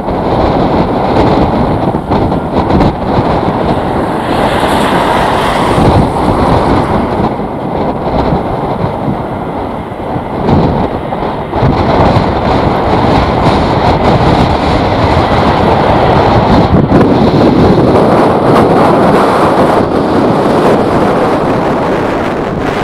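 Strong gusty wind buffeting the microphone: a loud, rough, continuous rumble that swells and dips with the gusts.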